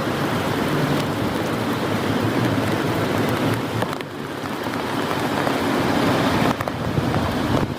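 Heavy rain pouring steadily, with individual drops tapping on a nearby surface. The rain eases briefly about four seconds in.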